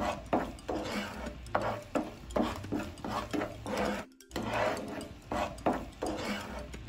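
Wooden spatula scraping and stirring thickening caramel around a nonstick frying pan, in repeated strokes about two to three a second, with a brief break a little after four seconds in.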